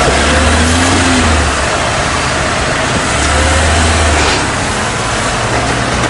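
A car engine running close by, swelling twice as it revs, over steady road noise.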